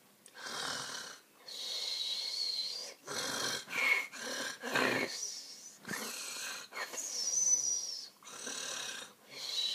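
A man snoring on purpose: a quick, irregular run of about eight or nine rasping snore breaths, several with a thin whistling note.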